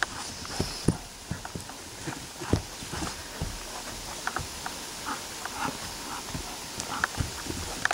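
Irregular soft thumps and rustles of footsteps on grass as a dog runs about with a ball in its mouth.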